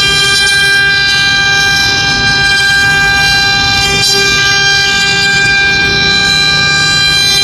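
Spindle of a 3040 mini CNC router running steadily with a high, constant whine over a rougher noise.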